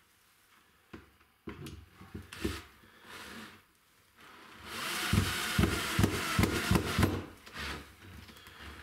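Bosch cordless drill-driver driving a screw into plywood, running for about three seconds from about halfway in. Before it, a few knocks of the boards being handled and set in place.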